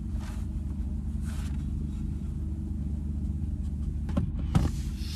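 Car engine idling with a steady low hum, and a couple of light knocks about four seconds in.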